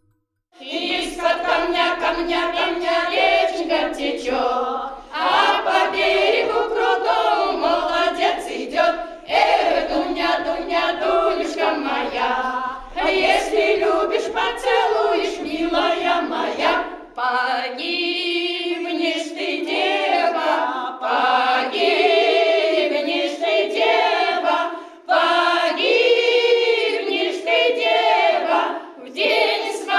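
A choir of elderly women sings a cappella, phrase by phrase, with short breaks between the phrases.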